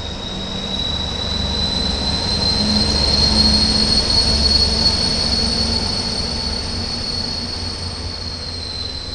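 SNCF diesel locomotive passing by: a deep engine rumble under a strong, high, steady whine. It grows louder to a peak a few seconds in, then fades as it moves away.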